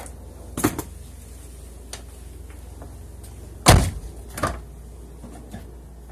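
A 2005 Toyota Sienna's door being opened and shut: a pair of sharp clicks near the start, then a loud shut a bit past halfway and a softer knock just after it. There is no popping from the door check, which has just been replaced with a new door check assembly.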